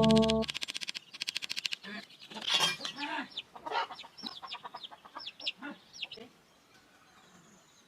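Background music breaks off, then a rapid run of clicks, about ten a second. After that come scattered short calls of chickens clucking, mixed with high chirps, which die away about six seconds in.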